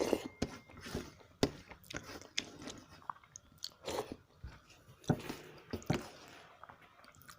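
A person chewing food, a run of short, irregular wet mouth smacks and clicks.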